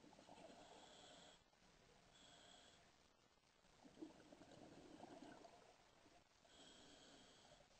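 Faint scuba breathing underwater: a diver's regulator hissing on the inhales and exhaled bubbles rushing out, in repeated cycles.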